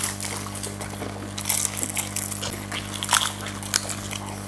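Pani puri being eaten: crisp, hollow puri shells cracking and crunching as they are bitten and chewed, with wet mouth sounds, in irregular bursts over a steady low hum.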